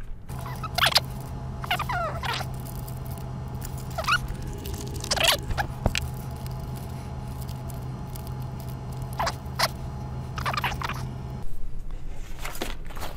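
Rummaging through plastic parts bins and small bags of electronic components: scattered rustles, scrapes and clicks over a steady low hum, which stops shortly before the end.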